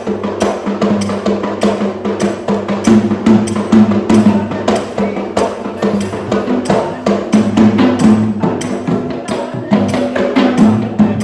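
Sri Lankan traditional drumming: many fast, sharp drum strokes in a steady driving rhythm, with a held pitched sound underneath.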